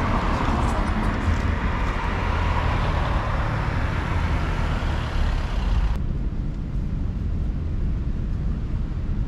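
City road traffic: cars driving past, a steady rush of tyre and engine noise over a low rumble. About six seconds in the higher hiss drops away abruptly and only the low rumble remains.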